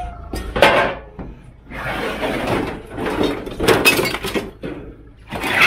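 Scrap metal being handled, clanking and scraping: a sharp clank about half a second in, then a longer scrape and a run of clatters, and another clatter near the end.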